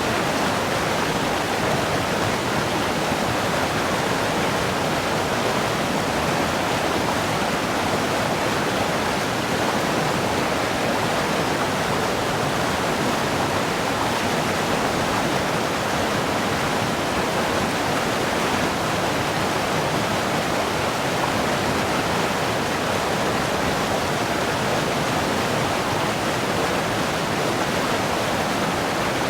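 River water rushing, a steady even roar without pauses.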